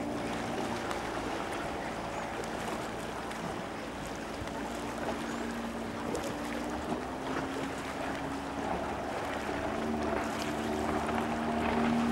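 Suzuki DT 140 V4 two-stroke outboard on a speedboat running at speed, a steady drone whose pitch shifts several times and grows louder near the end, with wind on the microphone.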